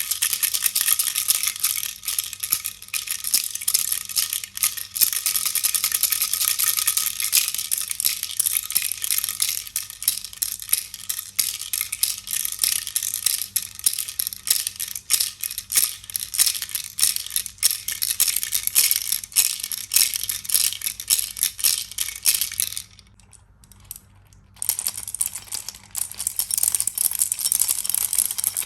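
A toy baby rattle shaken continuously: a dense, fast clatter of small beads inside. It stops for about a second and a half near the end, then starts again.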